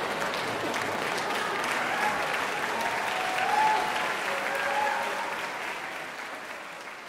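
Concert-hall audience applauding steadily, fading out over the last two seconds.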